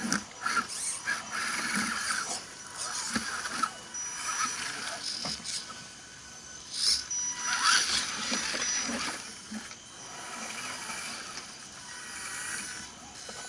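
Scale RC crawler trucks climbing over tree roots: the whine of small electric motors and geared drivetrains, coming and going in irregular spurts as the throttle is worked, with a few sharp clicks.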